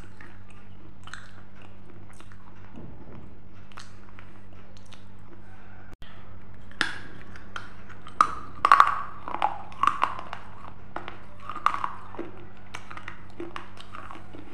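A person biting and chewing a thin, crisp round snack close to the microphone: sharp crunches and mouth clicks, loudest in a run of bites from about eight seconds in. A steady low electrical hum runs underneath.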